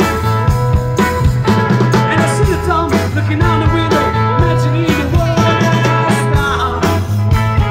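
Live rock band playing a song, with a steady drum beat, bass and amplified instruments.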